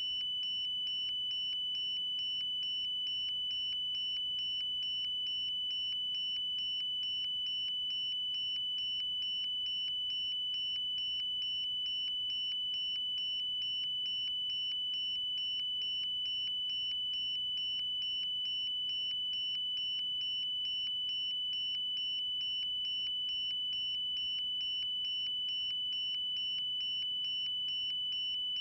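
Steady high-pitched electronic beep from the racing quadcopter's onboard buzzer, with a fast even pulsing that never changes, sounding while the drone lies motionless on the ground.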